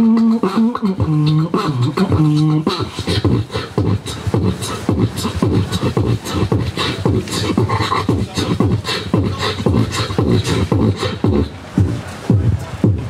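Human beatboxing into a microphone: it opens with held bass notes, hummed and stepping in pitch for about two to three seconds, then breaks into a fast, dense beat of kick, snare and hi-hat sounds over a low bass hum.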